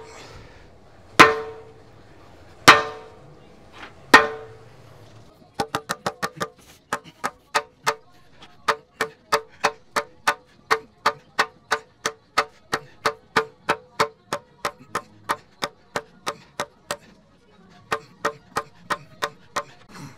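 Hand hammer striking steel, each blow ringing. There are four heavy blows about a second and a half apart, then a long run of quicker, lighter blows, about two to three a second, and a few more near the end.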